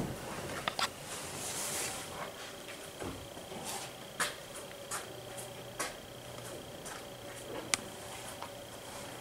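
Quiet indoor room tone with a faint steady hum, broken by scattered light clicks and taps, the sharpest near the end, and a brief soft hiss about a second and a half in.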